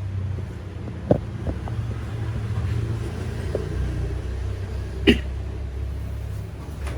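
A steady low rumble with a few brief knocks; the loudest knock comes about five seconds in.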